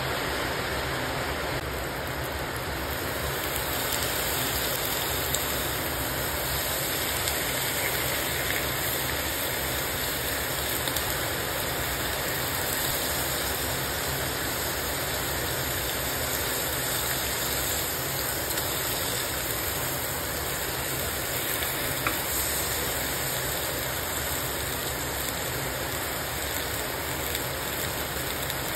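Baby squid and butter sizzling steadily in a hot nonstick pan, an even frying hiss, with a couple of brief clicks.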